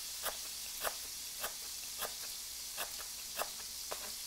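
Thin slices of pork belly sizzling steadily in hot oil, with a knife slicing lemongrass thinly on a cutting board in a regular run of crisp cuts, nearly two a second.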